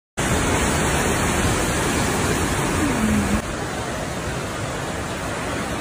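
Brown flash-flood water rushing in a torrent, a dense, steady noise. It drops a little in level about three and a half seconds in.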